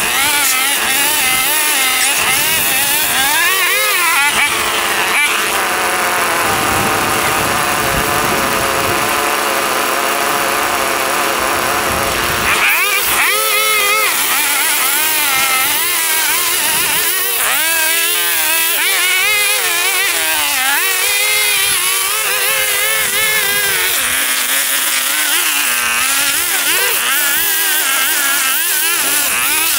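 Small petrol engine of lawn-care equipment running continuously, its pitch wavering up and down. The sound changes abruptly about thirteen seconds in.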